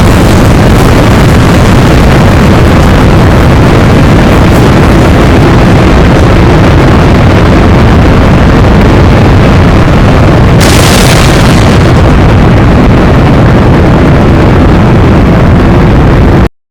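Tornado wind roaring over a microphone, very loud and distorted with a heavy low rumble. A harsher hiss swells for about a second roughly two-thirds of the way in, and the roar cuts off abruptly just before the end.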